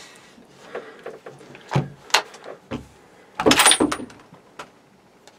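Knocking and handling noise inside a hunting blind: a few sharp knocks about two seconds in, then a louder clatter of several knocks near four seconds.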